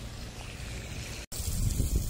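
Water from a garden hose spraying onto dry grass, a hiss and patter like rain. The sound drops out for an instant a little over a second in and comes back louder.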